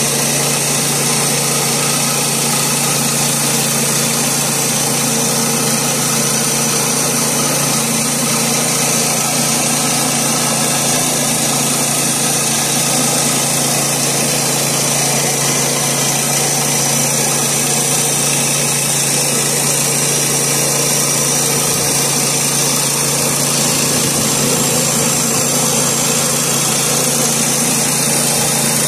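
Woodland Mills HM122 portable bandsaw mill running steadily on its 7 hp Kohler engine, the band blade sawing lengthwise through a sycamore slab.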